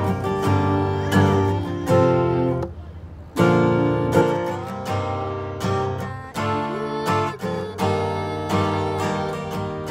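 Acoustic guitar strummed by hand, ringing chords in a steady rhythm, with a short break of under a second about three seconds in before the strumming picks up again.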